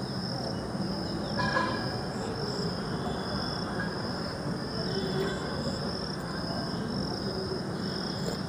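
Insects trilling in a continuous high, slightly pulsing drone over a low background hum, with one short tonal sound about a second and a half in.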